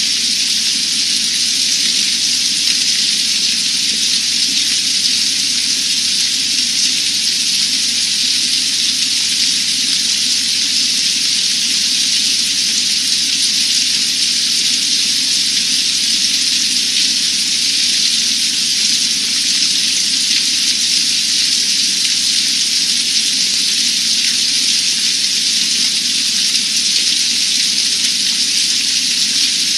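Hard rain falling steadily on open water: a dense, even hiss that holds without a break.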